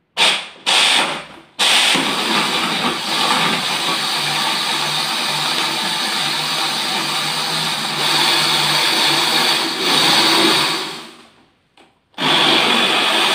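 Electric countertop blender (Miyako) grinding raw rice and ice cubes with milk and water: two short pulses, then a long steady run that winds down about eleven seconds in, and starts up again about a second later.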